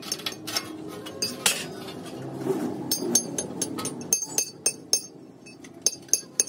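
Hand hammer striking steel: quick, irregular ringing metallic taps, several a second, with a short lull near the end.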